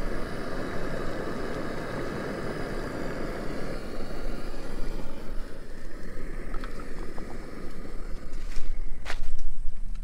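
A steady rushing noise that eases off after about six seconds, followed by a few light knocks from a metal ladle against an aluminium cooking pot.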